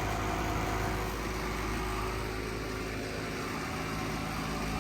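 2022 Goodman central air conditioner condenser running steadily, its fan and scroll compressor humming, with a loud rattle from the unit.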